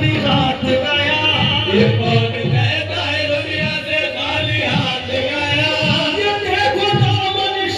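Qawwali: male voices singing a Sufi devotional song with group voices joining, over a steady drum beat.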